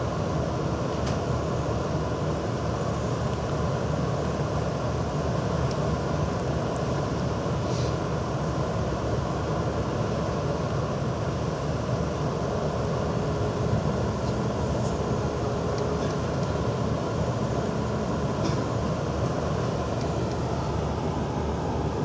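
Steady low rumble of the stern paddle-wheel cruise boat Michigan running under way, heard from its open deck.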